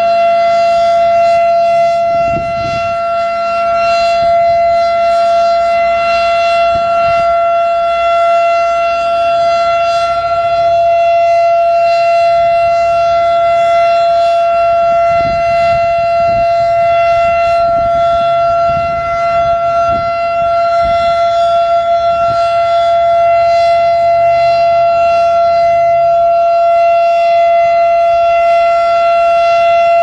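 A 1954 Federal Sign & Signal Model 7 warning siren sounding its full alert: a loud, low tone held steady at one pitch, with overtones.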